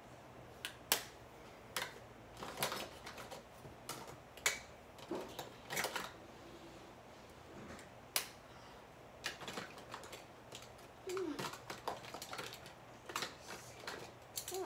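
About twenty sharp clicks and taps at an irregular pace, like small hard objects being handled and set down, with a couple of brief low squeaky sounds near the end.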